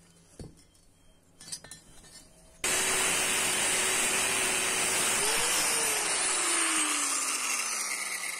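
Angle grinder with a cut-off disc starting suddenly about two and a half seconds in and cutting through a coil of a 5160 steel car suspension spring with a loud, steady whine. Over the last few seconds its pitch falls steadily as the disc winds down.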